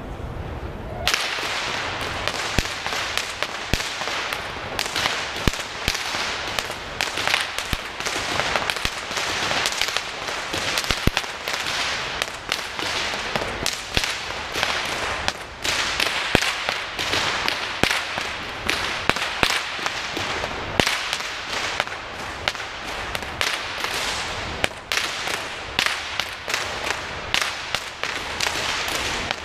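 Whip cracking in a rapid freestyle routine: a dense, almost unbroken run of sharp cracks, several a second, starting about a second in.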